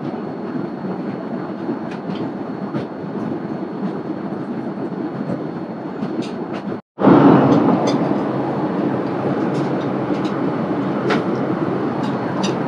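Steady cabin drone of a Boeing 787-8 airliner in flight, with a few faint clinks of cutlery on china. The sound cuts out for an instant about seven seconds in and comes back louder.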